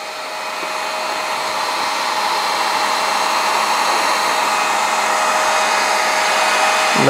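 Electric heat gun running steadily: a rush of blown hot air with a faint steady hum, growing gradually louder. It is warming cold vinyl dirt bike graphics so they soften enough to bend and stick.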